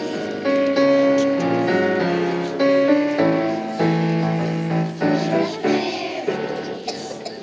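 Young children singing a patriotic song together with piano accompaniment.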